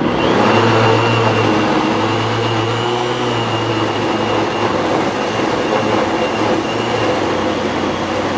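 NutriBullet countertop blender running its automatic Extract program, its motor at a steady high speed with a high whine over the churn, blending a green smoothie with frozen and hard ingredients. It builds to full speed within the first second.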